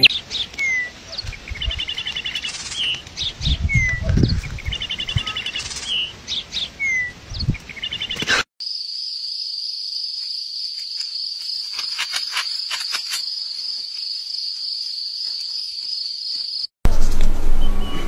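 Birds chirping in short repeated trills and falling whistles, with a few low thumps, for about the first half. Then a steady high-pitched insect drone with a few faint clicks, until a louder, noisier passage cuts in near the end.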